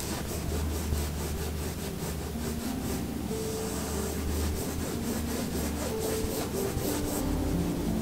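Paintbrush bristles scrubbing oil paint onto canvas: a continuous run of short, dry, scratchy back-and-forth strokes.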